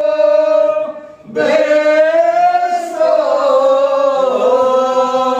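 One voice singing a devotional chant in long held, slowly wavering notes, breaking off briefly for breath about a second in before a long gliding phrase.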